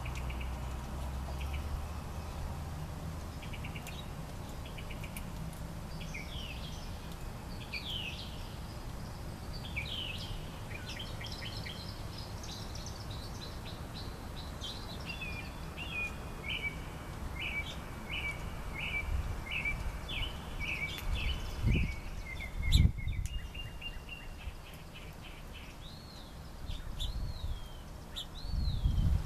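Songbirds calling and singing: varied chirps and short whistled phrases, with a run of quick repeated notes in the second half and rising-and-falling whistles near the end. A low rumble runs underneath, and two dull thumps come about two-thirds of the way through.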